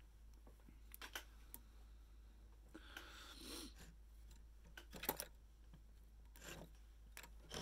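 Near silence with faint handling sounds: a few soft clicks and a brief rustle as fingers work the feathers of a cork popper fly clamped in a fly-tying vise. The sharpest click comes about five seconds in.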